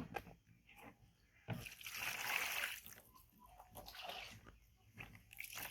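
Water rushing and splashing for about a second, starting about a second and a half in, followed by a few faint splashes.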